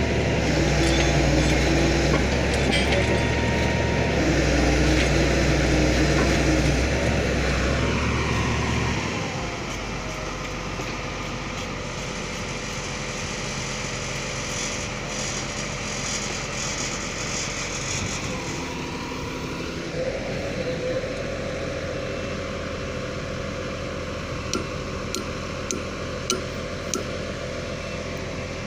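Diesel engine of a Hitachi excavator-based pile-driving rig running loudly for about nine seconds, then dropping back with a falling whine to a lower, steady run. A few light, sharp taps come near the end.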